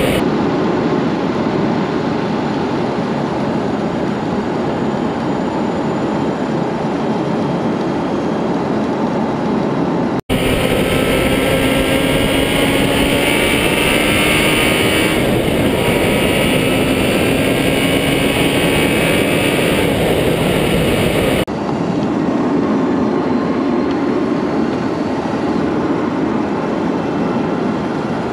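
A vehicle driving along a winding road, heard from a mounted camera: steady road and wind noise. In the middle stretch faint engine tones rise and fall. The sound drops out for an instant about ten seconds in and changes character again a little past twenty seconds.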